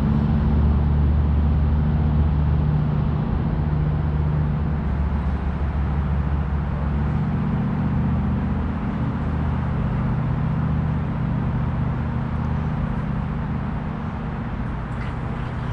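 An engine running steadily: a loud, even low drone with a hum under it, unchanging throughout.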